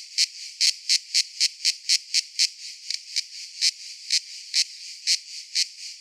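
Cicadas calling: short, sharp high-pitched chirps repeating about two to four times a second over a steady buzzing hiss.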